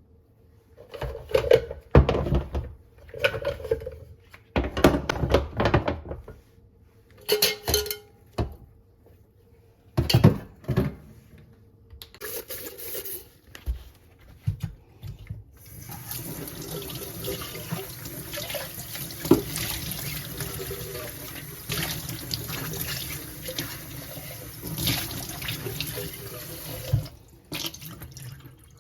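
A kitchen sink tap running steadily for about ten seconds in the second half. Before it come a series of knocks and clatter from things being handled.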